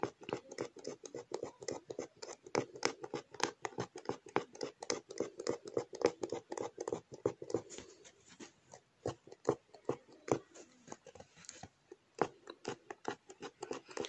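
Oriental punch needle repeatedly piercing taut fabric stretched in an embroidery hoop: a run of quick, uneven ticks, several a second, thinning out in the second half.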